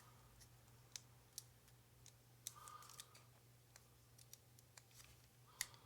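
Near silence with scattered small clicks and taps, about ten of them spread unevenly, over a faint steady low hum. The clicks fit multimeter probe tips touching the terminals of a lathe switch. The meter does not sound a continuity beep, because there is no connection in the stop position.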